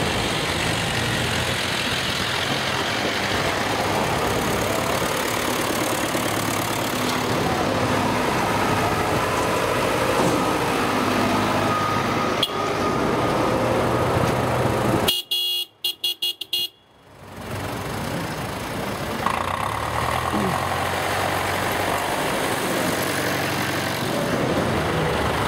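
Vintage tractor engines running steadily as a convoy drives along a road. About two-thirds of the way through, the sound cuts out almost completely for a couple of seconds in stuttering gaps, then returns.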